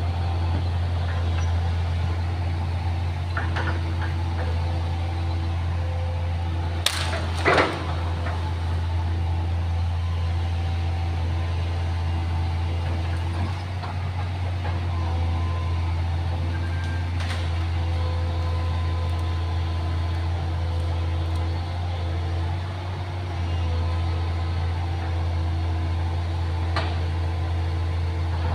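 Excavator's diesel engine running steadily with a deep hum, easing briefly twice. A sharp knock about seven seconds in is the loudest moment, with a few fainter clicks elsewhere.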